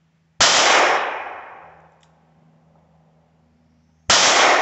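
Two shots from a Taurus 605 snub-nosed revolver firing .38 Special rounds, about four seconds apart. Each sharp report is followed by an echo that dies away over about a second and a half.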